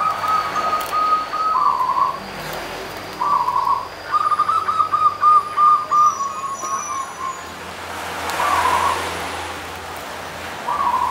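Zebra dove (perkutut) cooing in song: rapid stuttering runs of notes, the longest in the middle, broken by short single coos.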